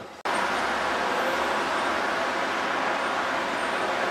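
Steady city street traffic noise: road vehicles and a tram running on its tracks. It starts abruptly about a quarter second in, after a brief dropout.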